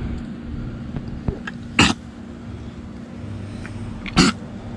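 A dog sneezing twice, two short sharp bursts about two and a half seconds apart, over a steady low hum.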